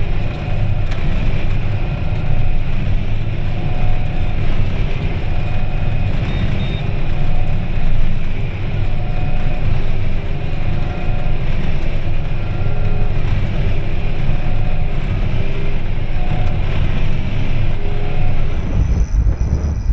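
A tractor and a straw baler running steadily in the field. They make a heavy low rumble, with a faint tone that comes back every second or two.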